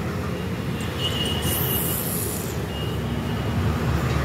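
Steady low rumble of passing vehicles, with a thin high-pitched squeal starting about a second in and a shorter one near the end.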